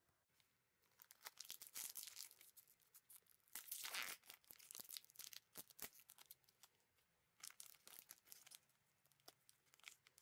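Quiet crinkling and rustling of a sealed EPOCH J.League trading-card pack's plastic wrapper, handled by gloved hands as it is taken from the box, in irregular crackly bursts that are heaviest about four seconds in.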